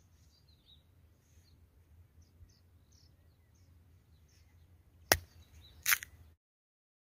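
Fresh cucumber snapped in two by hand: a sharp crack about five seconds in and a second crack just under a second later. Faint bird chirps in the background.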